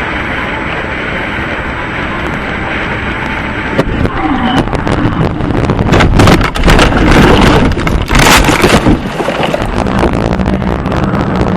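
Steady car driving noise from inside a moving vehicle, then about four seconds in a stretch of loud, irregular knocks, bangs and rumble lasting several seconds before it settles back.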